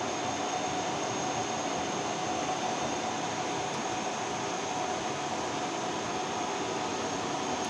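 Steady background hum of ventilation machinery, with a faint steady high whine over it and a single short click near the end.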